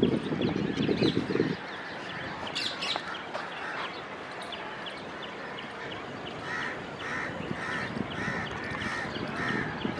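Birds calling: short high chirps throughout, and in the second half a run of repeated harsh calls, about two a second. A low rumble at the start stops about one and a half seconds in.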